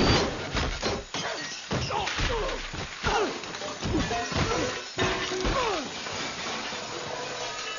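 Film crash-and-smash sound effects: a burst of heavy impacts and shattering as bodies slam into walls and the floor and debris crashes down, with swooping sounds falling in pitch between the hits. It dies down after about six seconds.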